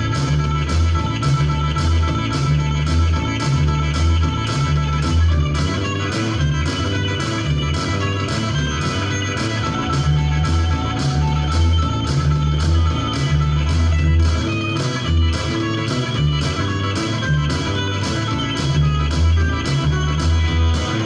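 Rock-and-roll band track in an instrumental stretch with no singing: a steady drum beat, electric guitar, and an electric bass playing a repeating, pulsing bass line.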